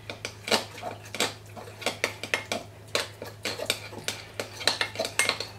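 Metal spoon stirring thick miso paste in a glass bowl, clinking and scraping against the glass in quick, irregular strokes, several a second, as the paste is loosened with mirin.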